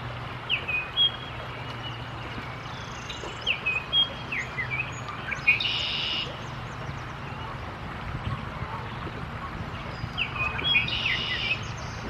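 Baltimore oriole singing: two phrases of short, clear whistled notes, the first running through the first half, the second near the end.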